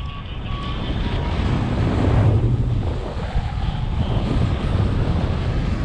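Airflow rushing over the microphone of a paraglider pilot in a banked turn, swelling about two seconds in. A few short, evenly spaced variometer beeps sound in the first second or so, then stop.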